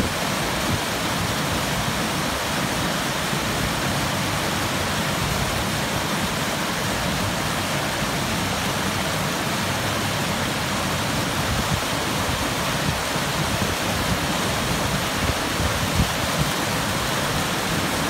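Creek water pouring over a low concrete weir and churning in the pool below: a steady, unbroken rush of falling water.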